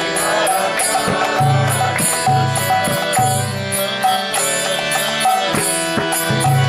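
Kirtan music: devotional mantra chanting with instrumental accompaniment, low drum notes and sharp percussive strokes keeping a steady beat.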